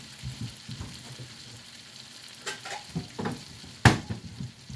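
Chicken sizzling in a cast iron pan, a steady frying hiss, with scrapes and clacks of metal tongs against the pan and plate. The loudest is one sharp clack a little under four seconds in.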